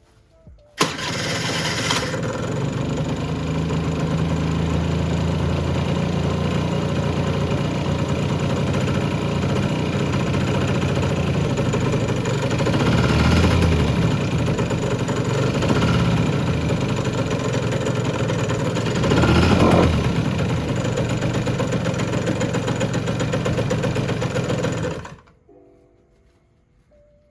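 Honda Gyro X's 50cc two-stroke engine starting suddenly about a second in and running steadily for over 20 seconds, revved up briefly twice, then cutting off. It is the engine being test-run during its restoration.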